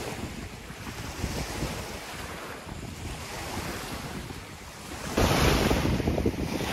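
Wind-driven waves washing onto the pebble shore of a lake, with wind buffeting the microphone. Both get suddenly louder about five seconds in.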